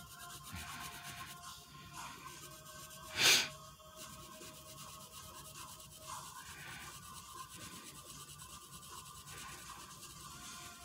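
Sharpie fine-point felt-tip marker rubbing and scratching on paper as a drawing is inked, with one brief, louder hiss about three seconds in.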